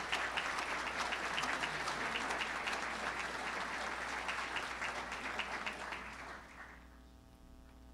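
Audience applauding, dying away about six to seven seconds in.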